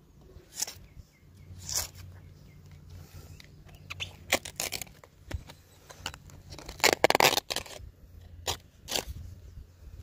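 Curved tapping knife shaving slices off a palmyra palm's flower stalk to open it for toddy, a string of short scraping cuts, loudest in a quick cluster about seven seconds in.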